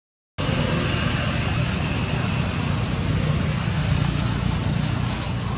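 Steady rushing background noise, after a brief cut to silence at the very start.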